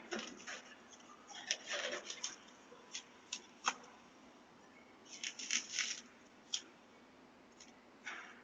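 A door handle and lock being tried and jiggled: faint clicks and metallic rattles in short, irregular clusters, with a quick run of clicks about five seconds in.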